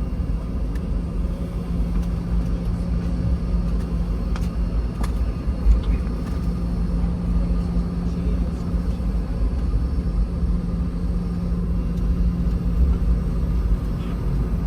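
Cabin noise inside a Boeing 717 airliner during taxi: a steady low rumble with a constant hum, and a few faint clicks and a light knock about six seconds in.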